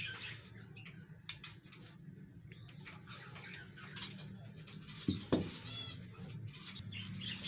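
Faint calls and chirps of caged pet birds, with a few light clicks and taps from handling capsules over a bowl.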